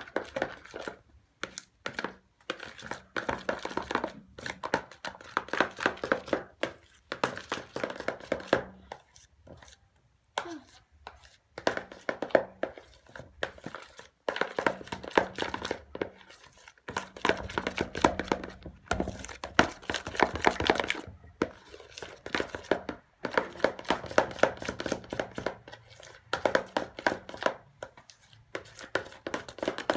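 Metal spoon stirring glue and shaving foam in a plastic bowl, scraping and clicking against the sides in quick repeated strokes, in spells of a few seconds with short pauses: the slime mixture being mixed.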